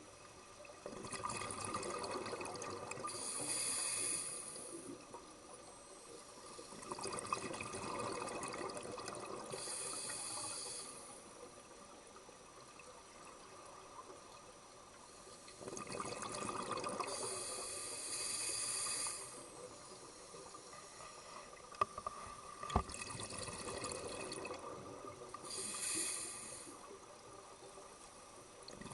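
Scuba diver breathing through a regulator underwater: slow cycles of bubbling exhaust and hissing breaths, about every eight seconds. A sharp click comes a little over three-quarters of the way through.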